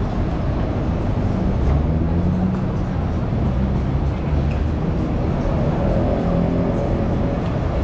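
Busy city street ambience: a steady low traffic rumble mixed with voices and music.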